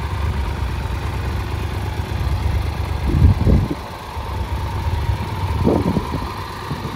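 Triumph Tiger 1200 Rally Explorer's three-cylinder engine idling with a steady low rumble, swelling louder briefly about three seconds in and again near six seconds.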